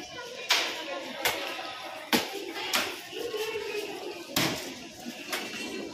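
Shopping-arcade ambience: background voices and shop noise, with sharp clicks and knocks every second or so.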